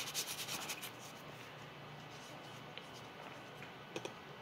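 1000-grit sandpaper rubbed by hand in quick back-and-forth strokes over a primer-painted prop, lightly scuffing and polishing the primer to weather it. The strokes stop about a second in, leaving a quiet stretch with a small tap near the end.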